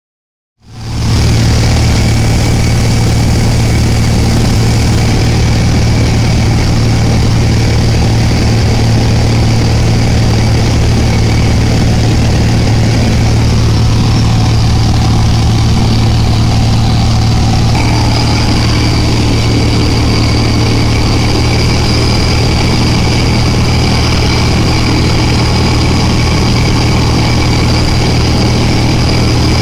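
Light aircraft's piston engine and propeller droning steadily, heard from inside the cabin; the tone shifts slightly about eighteen seconds in.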